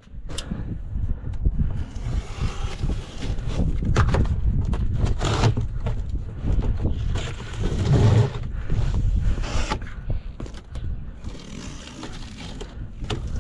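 Wind rumbling on the microphone, with scraping and knocks from parts being handled.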